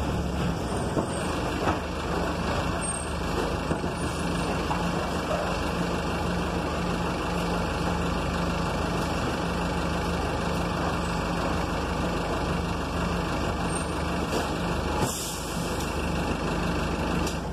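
City bus engine running steadily, heard from the driver's cab as the bus rolls slowly through the terminal and pulls up behind another bus. Near the end comes a short hiss of the air brakes.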